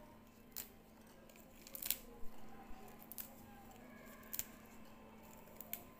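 Fresh mint leaves being pinched and snapped off their stems by gloved hands, giving about six sharp little snaps and crackles spread irregularly over a faint steady hum.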